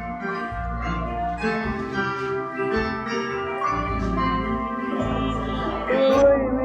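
Music: an instrumental passage of a song, with held chords and low bass notes in a steady pulse.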